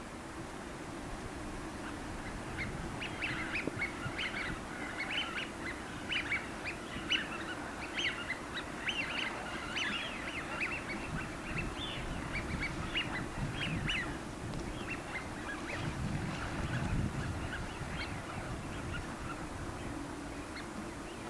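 Drake Eurasian wigeons giving many short whistled calls, crowded together from about two seconds in until about fourteen seconds, then only now and then. These are display calls, which the uploader takes for courtship of a female or a threat to rival males.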